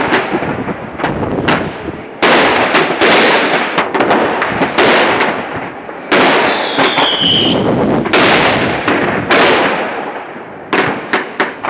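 Fireworks going off: a string of loud, sharp bangs, roughly one every one to two seconds, each trailing off in a long rumbling tail. About five seconds in, a rocket's whistle falls in pitch for a couple of seconds.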